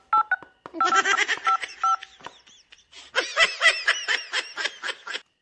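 Phone keypad tones as a number is dialed, a quick series of two-tone beeps, overlapped and then followed by high-pitched laughter.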